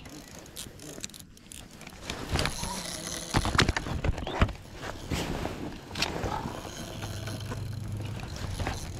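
Handling noise of fishing gear in a plastic kayak: scattered clicks and rattles, then a run of sharp knocks in the middle. About two seconds before the end a steady low hum starts.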